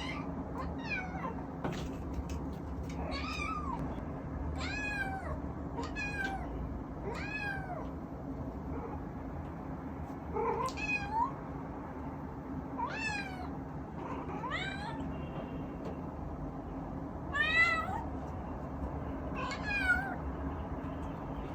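Short-legged Munchkin kitten meowing repeatedly, about ten high calls a second or two apart, each rising then falling in pitch; the loudest calls come near the end. These are the cries of a kitten left home alone.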